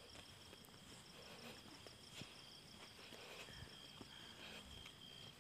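Faint night insects calling: a steady high trill, with a faster pulsing chirp above it, and a few soft ticks.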